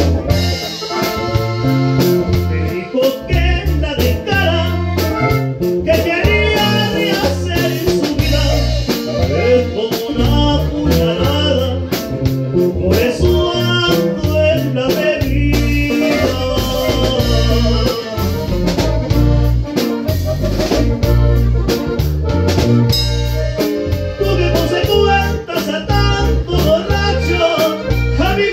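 Norteño band music played live: guitars, bass and a drum kit keeping a steady beat, with a man singing in several stretches.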